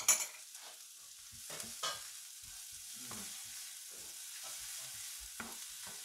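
Chopped shallots sizzling gently in butter in a non-stick frying pan as they are sweated without browning, stirred with a wooden spoon. A steady hiss, with a few scrapes and knocks of the spoon against the pan, the loudest right at the start.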